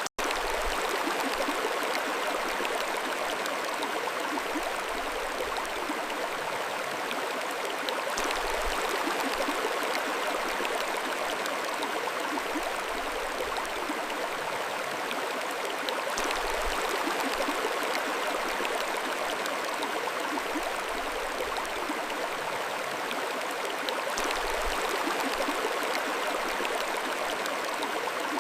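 Mountain stream flowing and splashing over stones, a steady, even rush of water.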